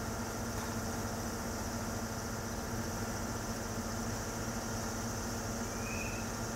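KiHa E120 and KiHa 100 diesel railcars idling at the platform: a steady diesel engine hum. A brief faint high chirp comes about six seconds in.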